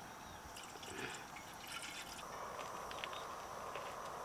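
Liquid poured from a stainless-steel bottle into a metal camping kettle, splashing and trickling at first, then settling into a steadier filling sound about halfway through.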